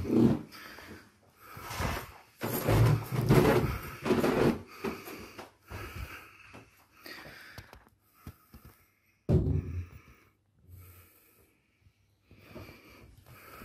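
Footsteps of someone climbing carpeted stairs and walking across bare rooms, with rustling handling noise from a hand-held phone: irregular soft thumps, heaviest a few seconds in and again just after the middle.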